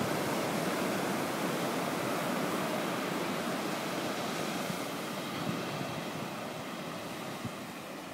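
Ocean surf washing up the beach: a steady wash of noise that slowly fades.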